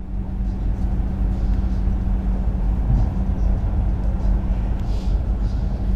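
Inside the carriage of a moving electric passenger train: a steady low rumble of the wheels on the track with a constant low hum.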